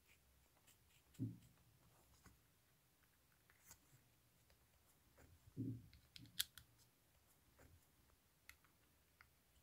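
Faint handling noise of a JBL 035Ti tweeter's dome-and-voice-coil assembly being seated on its faceplate and screwed down: two soft thumps and a few small clicks, the sharpest about six seconds in.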